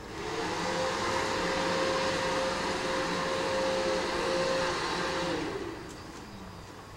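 A small motor running with a steady whine over a rushing-air noise, starting abruptly and winding down with falling pitch about five and a half seconds in.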